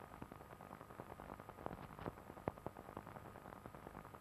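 Faint steady hiss with scattered irregular crackles: the surface noise of an old optical film soundtrack, with no dialogue.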